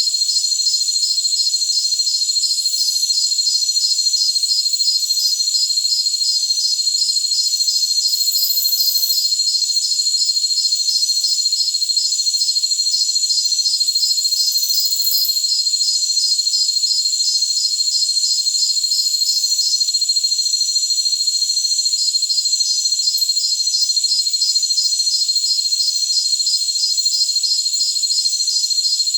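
Chorus of jungle crickets: several steady high-pitched trills layered with one insect's pulsed chirping, a few pulses a second. The pulsed chirping stops for about two seconds around two-thirds of the way through, then resumes while the trills go on.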